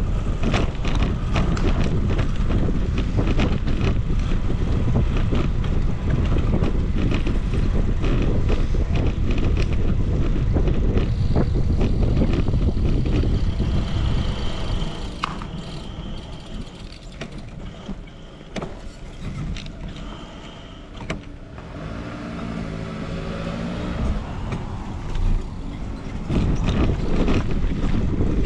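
Wind buffeting the microphone of a camera riding on a moving bicycle, a loud low rumble that eases off about halfway through and comes back near the end. While it is quieter, a motor vehicle's engine can be heard changing pitch.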